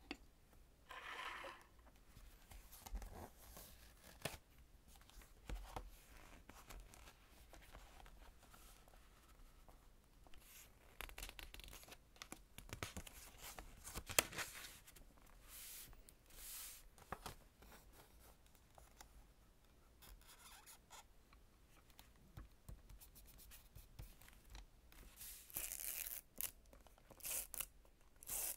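Quiet handling of a traveler's notebook and its paper: the elastic band slipped off, the cover and pages opened and pressed flat, and a large binder clip clamped on, heard as scattered soft rustles, taps and clicks. A few seconds before the end come quicker, sharper scratches as a small hand tool is pressed and drawn across the paper.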